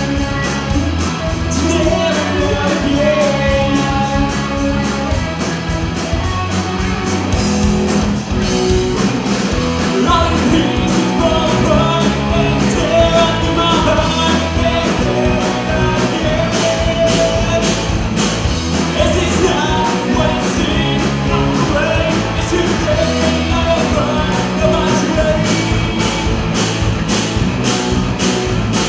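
Rock band playing live: distorted electric guitars, electric bass and a drum kit, with a man singing over them. The music stays loud throughout, with the cymbals hitting more densely in the second half.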